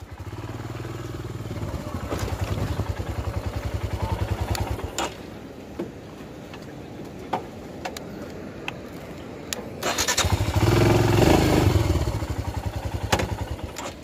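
Royal Enfield Himalayan's single-cylinder engine thumping at low revs while the motorcycle is ridden slowly over rock. The engine drops back after about five seconds, with a few sharp knocks in the lull, then picks up louder again near the end.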